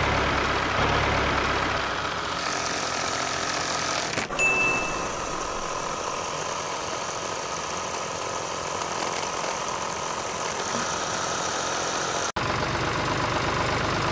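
Small electric motor driving a miniature homemade flour mill, running steadily as it grinds grain into flour. There is a short click about four seconds in, and a brief dropout near the end.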